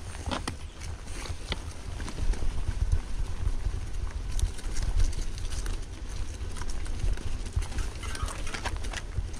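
Mountain bike riding over a rough trail: wind rumbling on the microphone, with scattered clicks, ticks and rattles from the bike and loose stones, a little louder about two to five seconds in.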